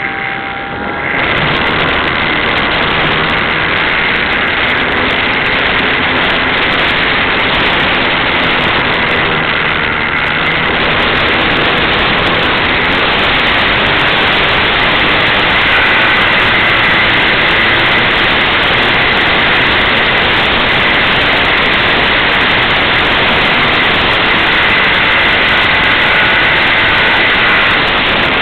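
Steady, loud wind noise on the microphone during an RC model flight, with a thin high whine from the electric motor of a Skyartec Cessna 182 model plane.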